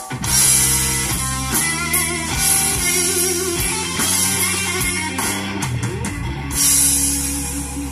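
Rock music with guitar and drums played through a car stereo (Kenwood KDC-100U head unit driven by an Art Nouveau AN4.400 amplifier), heard inside the car's cabin.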